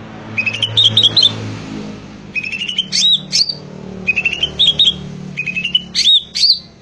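Cucak ijo (green leafbird) singing in loud, energetic phrases: about five quick runs of whistled, sweeping high notes with short pauses between them. A faint low hum runs underneath.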